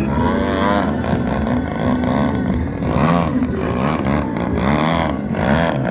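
Petrol engine and propeller of a large aerobatic model airplane running hard, its pitch swinging up and down several times as the throttle changes through manoeuvres and a low pass.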